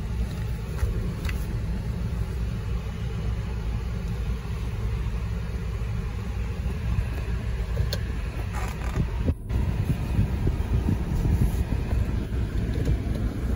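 Low, steady rumble of a Jeep Grand Cherokee moving slowly, heard from inside the cabin: engine and tyre noise, with a few faint clicks and a momentary dropout about nine seconds in.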